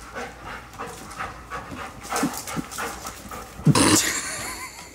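Dog panting quickly and rhythmically, about three breaths a second, with one short, louder vocal sound about three and a half seconds in.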